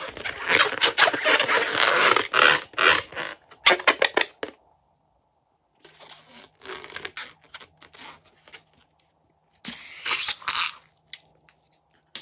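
Hands handling and squeezing a filled rubber balloon, rubber scraping and squeaking in dense strokes for the first four seconds. A second short burst comes about ten seconds in as its contents are squeezed out into a bowl of foam.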